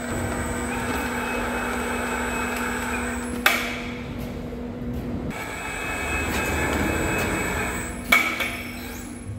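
Electric overhead hoist running as it lifts and carries a steel bar on a sling, a steady motor hum whose tone changes about five seconds in. Two sharp metal clanks, one about three and a half seconds in and a louder one near the end.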